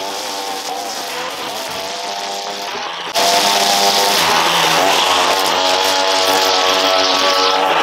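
Small gasoline engine of outdoor power equipment running steadily, then suddenly louder and hissier about three seconds in, its pitch dipping and recovering as if under load.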